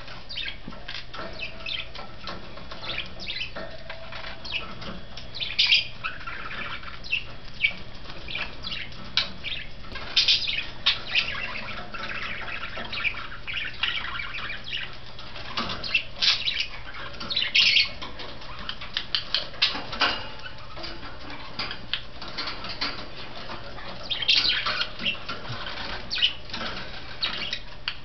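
Budgerigars chirping and chattering in short high-pitched bursts, with many small clicks and taps of beaks and feet on a wire cage and a hanging mirror.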